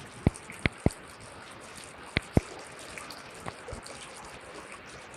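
Floodwater flowing with a steady rush, with several short, sharp clicks or knocks in the first few seconds.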